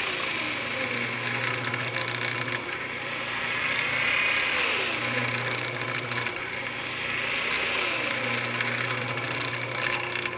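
Jet JWL-1236 wood lathe running with its Reeves variable-speed drive exposed: the motor hums and the belt whirs over the variable pulleys. Pitches slide up and down several times, and a low hum comes and goes.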